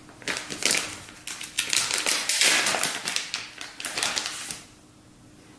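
Plastic bait packaging crinkling and rustling in irregular bursts as it is handled, stopping about four and a half seconds in.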